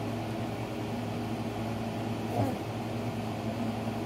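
A steady low mechanical hum made of several even tones, with one short falling vocal sound about halfway through.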